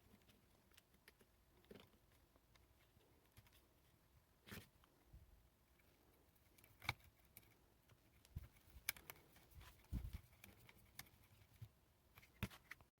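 Faint, scattered clicks and taps of small plastic RC car parts and tools being handled while a rear carrier is fitted to a Tamiya M-05 chassis, sparse at first and busier in the second half.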